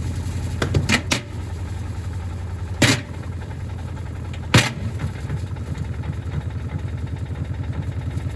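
Gorenje SensoCare washing machine running with heavy bricks in the drum: a steady, fast, rhythmic low thumping, broken by several sharp bangs as the bricks slam against the drum.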